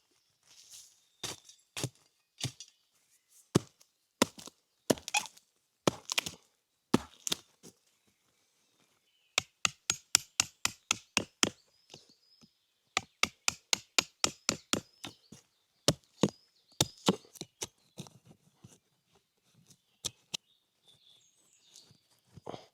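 Wood being chopped with a blade in sharp, separate strikes. Single blows come about a second apart at first, then fast runs of several strikes a second through the middle.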